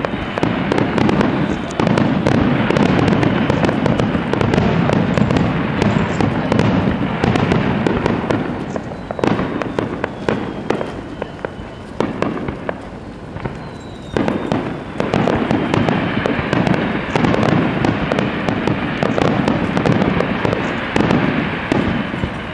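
Starmine fireworks barrage: a rapid, continuous run of shell bursts and crackling. It thins out around the middle and builds again for the last several seconds.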